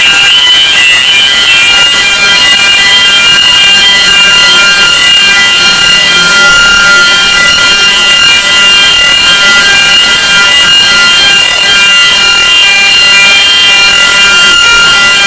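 Fire alarm sounding continuously with a loud, steady multi-tone note, over a constant machinery noise. It was set off by smoke and steam from an overheated auxiliary engine whose V-belt had broken.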